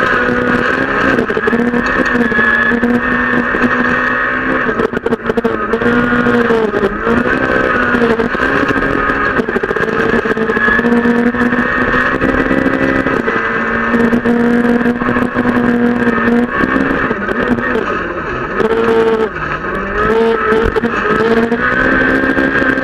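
Inside the cabin of a Peugeot 208 R2 rally car at full pace: its 1.6-litre four-cylinder engine pulls hard, its pitch climbing and falling again and again with gear changes and lifts for corners.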